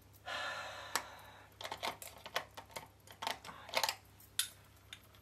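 A brief rustle, then a run of irregular light clicks and taps of makeup items being handled and set down.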